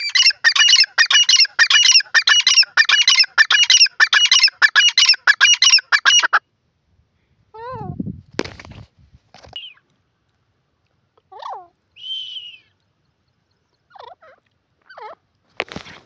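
Grey francolin (grey partridge) calling: a loud, rapid series of harsh repeated notes, about two a second, that stops about six seconds in. A few softer, scattered notes and a couple of knocks follow.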